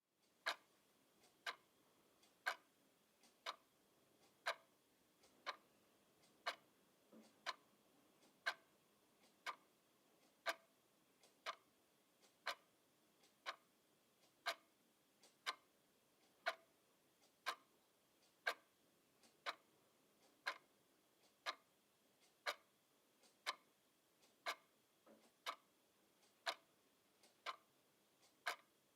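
Wall clock ticking steadily, a sharp tick once a second, each with a fainter click just before it.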